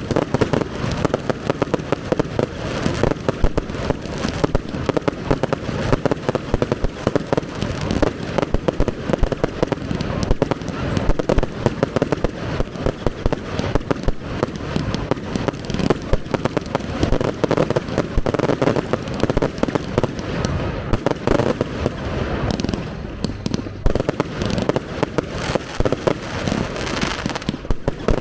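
Professional fireworks display: a rapid, continuous barrage of shell bangs and crackles, with no pause.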